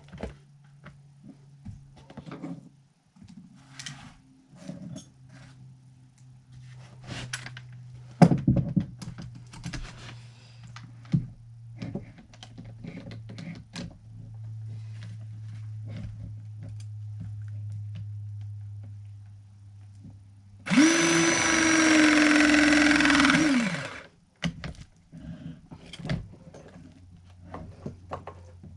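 Scattered knocks and clatter of tools being handled, then a power drill's motor spins up about two-thirds of the way in, runs steadily for about three seconds and winds down.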